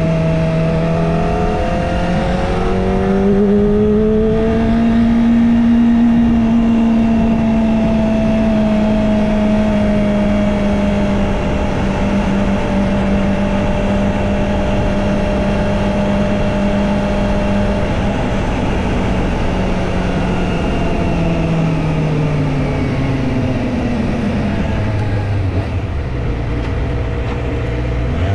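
Kawasaki Ninja ZX-25R's 250 cc inline-four engine running as the bike rides along. It climbs in pitch over the first few seconds, holds a fairly steady cruising note, then falls away over several seconds near the end as the bike slows.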